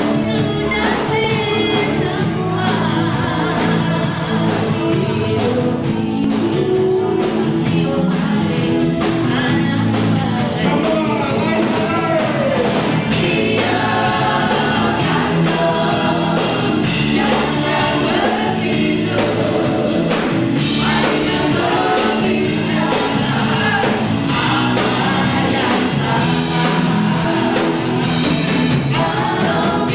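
A live band playing, with several voices singing together over drums and guitars.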